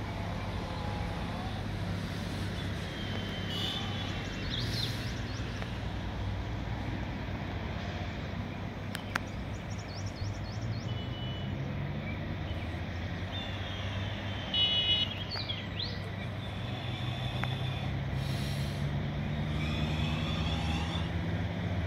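A steady low engine hum that rises in pitch over the last few seconds, with short high chirps and a single sharp click about nine seconds in.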